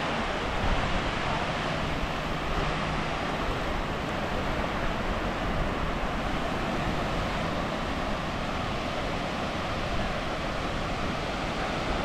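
Small waves breaking and washing up a sandy beach, a steady rushing wash, with wind rumbling on the microphone.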